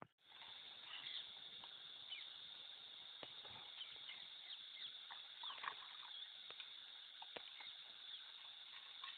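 Cooking oil heating in a pot on a portable gas stove, with a steady sizzle and many small pops and crackles. It starts suddenly at the very beginning.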